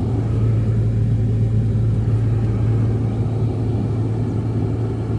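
A car driving, its engine and road noise making a steady low hum and rumble.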